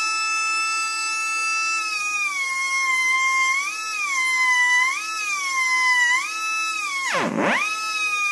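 High-speed rotary tool with a fine sanding drum whining as it smooths a chainsaw cylinder's port. Its pitch sags and recovers as the drum is pressed in and eased off, and drops sharply for a moment near the end.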